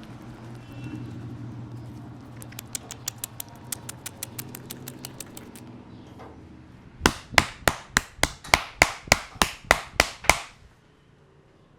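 Hands working a head massage: a run of light, quick clicks, about six a second, then about a dozen loud, sharp hand strikes in a steady rhythm, about four a second, that stop abruptly.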